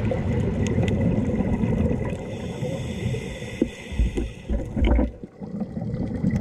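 Underwater noise picked up by a diving camera: a steady low rumble of water, with a few louder low surges about four to five seconds in.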